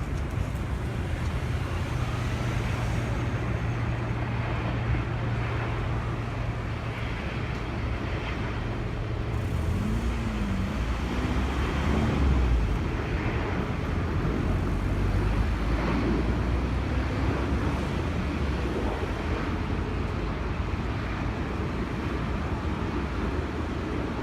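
Steady vehicle and engine noise with a constant low hum, swelling slightly about halfway through.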